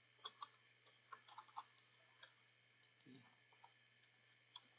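Faint, irregular keystrokes on a computer keyboard: about ten scattered clicks at an uneven pace, a few of them in a quick run about a second in.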